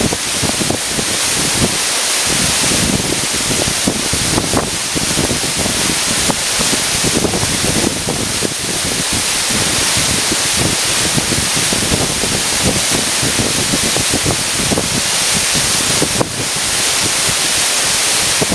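Waterfall pouring in a loud, steady rush, with an uneven low rumble underneath.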